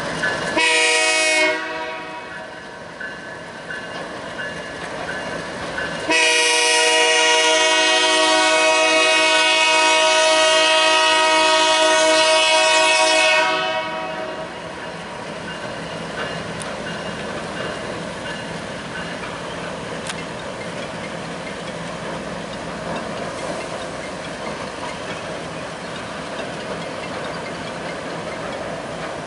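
Freight locomotive air horn sounding a short blast about half a second in, then a long blast held for about seven seconds, a chord of several tones. After the horn stops, the freight cars roll past with a steady rumble of wheels on rails.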